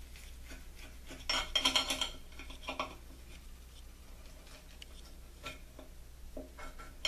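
Knife and fork cutting a pork chop on a plate: a quick run of metal scraping and clinking against the plate about a second in, then a few scattered clinks.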